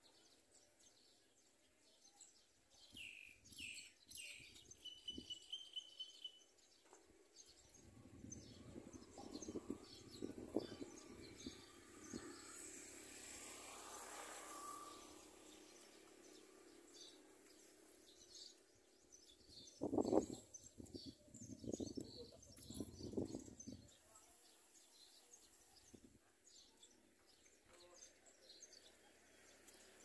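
Faint birdsong outdoors: scattered high chirps and a short steady whistled note in the first few seconds, with faint ticking throughout. A few louder, low, muffled sounds come near the middle and again about two-thirds of the way in.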